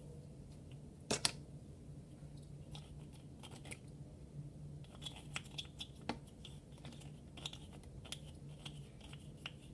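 Small irregular clicks and crackles of hands handling slime-making materials (glue, bowl, paint container), with a sharper click about a second in and a faint steady low hum underneath.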